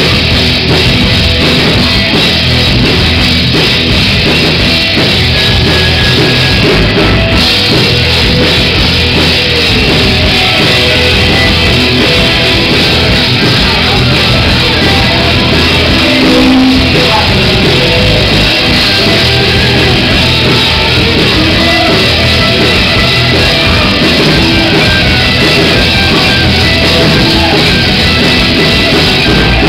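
Rock band playing live and loud: drum kit, electric guitars and bass guitar in full swing.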